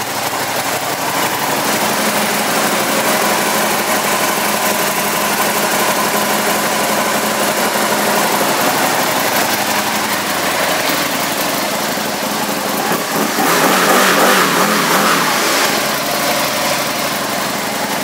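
2008 Aprilia Tuono 1000R's 998 cc V-twin engine running steadily at idle, getting louder for a couple of seconds about three-quarters of the way through.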